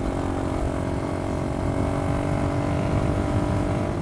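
Yamaha XT225's single-cylinder four-stroke engine running at a steady speed under way, over a flickering low rumble from the ride.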